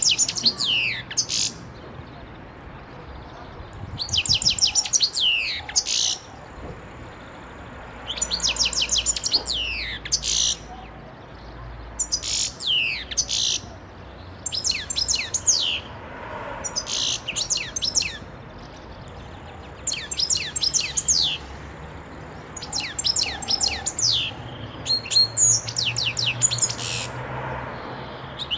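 European goldfinch singing: short phrases of rapid, high twittering notes, repeated about every three seconds with brief pauses between.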